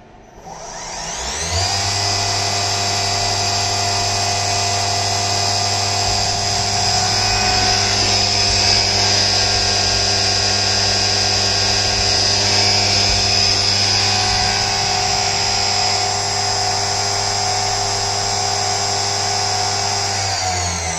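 CNC milling machine spindle spinning up to a steady high whine while the cutter machines a flat spot dry into a metal engine-case part tilted on the fifth-axis trunnion. Near the end the whine drops in pitch as the spindle winds down.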